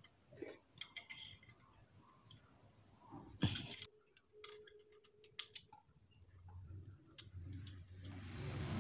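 Faint, scattered metallic clicks and taps of a hand tool and fingers working among the rocker arms and valve adjusters of a Honda Vario 125 cylinder head, with one louder knock about three and a half seconds in. A faint hiss swells near the end.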